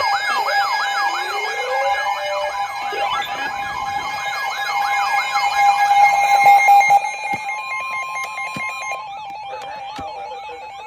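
Weather alert radios sounding their siren alarms for an incoming severe thunderstorm warning: fast warbling, wailing tones over a steady beeping tone. The alarms fade out after about seven seconds, leaving a short steady tone and a few clicks.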